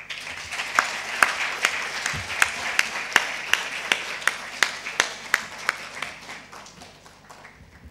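Audience applauding, with one set of close, sharp claps standing out at nearly three a second over the crowd's clapping; the applause dies away over the last two seconds.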